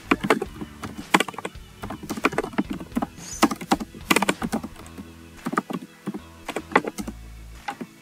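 Typing on a computer keyboard: an irregular run of quick key clicks.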